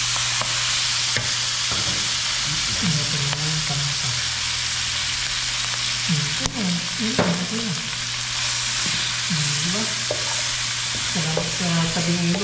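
Salted tilapia frying in a pan of hot oil: a steady sizzle, with a couple of sharp clicks a little past the middle.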